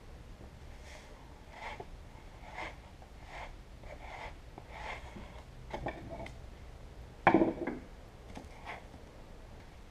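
Plastic spreader scraping body filler across a foam mold and a cardboard mixing board: short strokes at about one a second, with one louder knock about seven seconds in.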